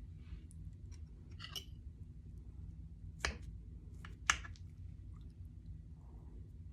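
Eating buttermilk pancakes: three short sharp clicks and clinks, the loudest a few seconds in, over a steady low hum.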